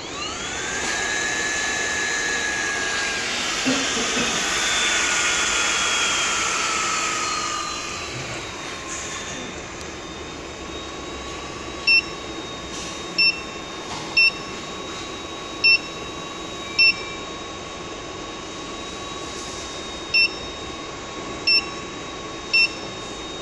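Cooling fan of a Lambda TH250048 48 V 50 A power supply spinning up at switch-on, a rising whine with a loud rush of air, then slowly winding down over several seconds to a steady whine. From about halfway in, eight short keypad beeps from a Maynuo M9716 DC electronic load as its buttons are pressed to set the test current.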